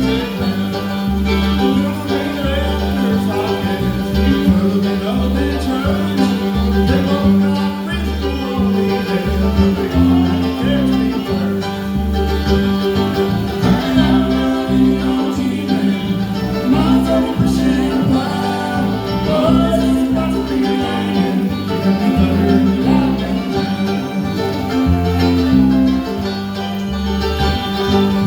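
Bluegrass band music: acoustic guitar and banjo playing over a bass line that steps between notes.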